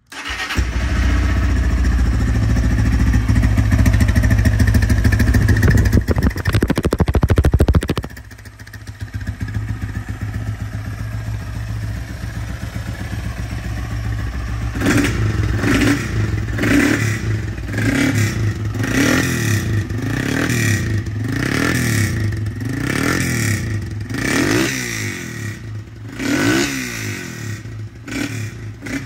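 Motorcycle single-cylinder engine running loud through a free-flowing tin 'toruna' exhaust. It holds high revs for about eight seconds, drops to idle, then from about halfway is blipped about once a second, each rev rising and falling.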